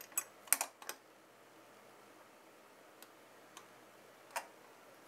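Light clicks and taps of a Cryorig H7 CPU tower cooler knocking against its mounting hardware as it is set into place on the motherboard. A quick cluster of clicks comes in the first second, then a few single ticks, the loudest about four and a half seconds in.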